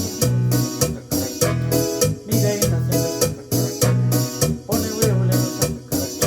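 Yamaha PSR-E463 portable keyboard playing a melody over a steady drum and bass rhythm.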